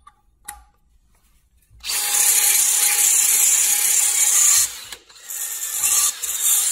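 Cordless drill spinning a homemade cleaning attachment against the metal ring seat, a harsh scraping whir in two long runs with a brief pause between, scouring out debris so a hub-centric ring will seat. A couple of light clicks come just before it starts.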